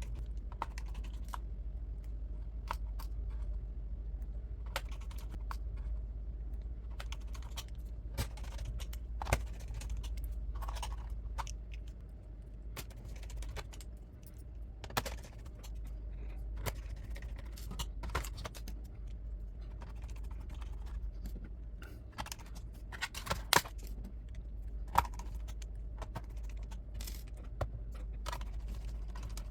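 Scattered clicks and taps of plastic laptop parts being handled and snapped together as the base cover is fitted, over a steady low hum.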